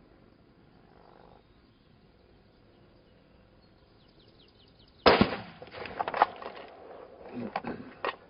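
A single shot from a bolt-action precision rifle, a sudden loud crack about five seconds in with a short tail, followed by a few sharp metallic clicks as the bolt is worked to chamber the next round.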